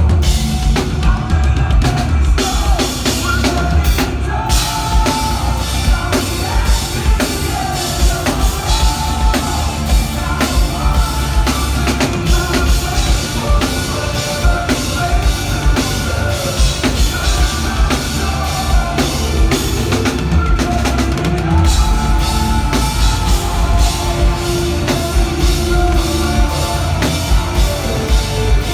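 Rock band playing live, with a drum kit's kick and snare hitting hard and dense under sustained melodic parts.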